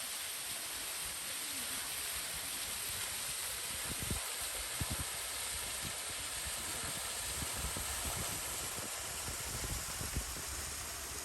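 A steady outdoor rushing hiss, with low bumps and buffets now and then, the heaviest of them about four to five seconds in and again over the last few seconds.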